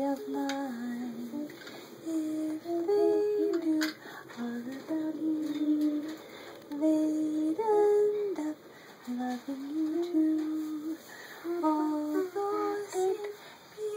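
A voice singing a slow, simple tune in held notes that step up and down, in short phrases with brief pauses between them.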